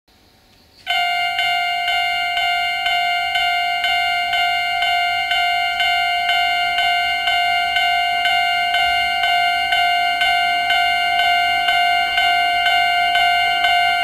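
Japanese railway level-crossing warning bell starting up about a second in, then ringing steadily at about two strikes a second: the crossing is activated for an approaching train, with the barriers coming down.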